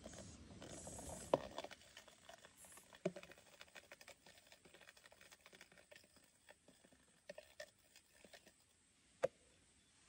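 Faint clicks and taps on a clear plastic insect box, with rustling from the box being handled in the first second and a half. The sharpest taps come about a second in, about three seconds in and near the end.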